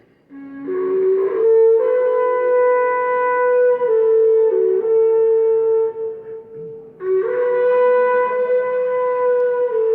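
A cuerno horn blown in two long blasts, each starting low and stepping up to a held, buzzing note with slight wavers in pitch; the second begins about seven seconds in. It is sounded to announce the mourning of Jesus Christ.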